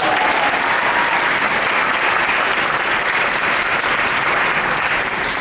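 Audience applauding, steady and loud, dying away near the end.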